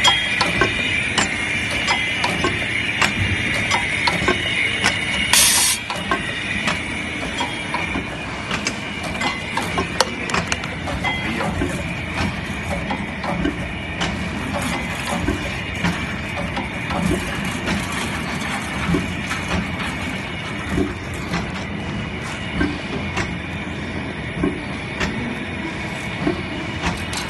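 Automatic plastic tube filling and sealing machine running: a steady rattle of many clicks and knocks over a continuous hiss. A short, loud burst of hissing comes about five and a half seconds in.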